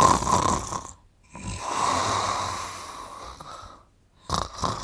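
A man snoring in long drawn breaths. One snore ends about a second in, a longer one follows after a short pause, and another starts near the end.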